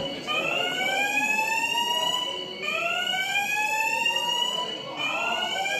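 Building fire alarm sounding its evacuation signal: a whooping tone that rises steadily over about two seconds, then drops back and starts rising again, over and over.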